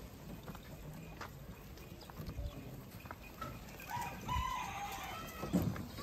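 A rooster crows once, a single long call of about a second and a half in the second half that rises, holds and then falls away, with a few soft knocks around it.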